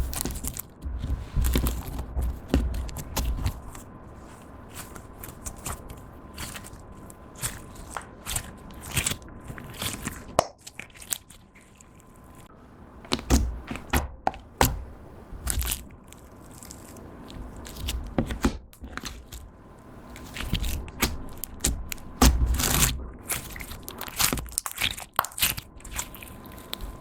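Clear slime being squished and kneaded by hand, giving clusters of sticky clicks, pops and crackles from trapped air, with short pauses between handfuls.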